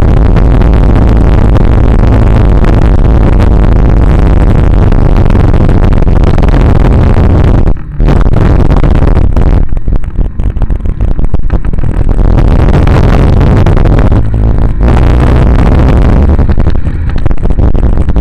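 Loud, steady riding noise from a moving vehicle, picked up by a camera mounted on it: a rumble of wind and road noise with the vehicle running underneath. It drops out briefly about eight seconds in.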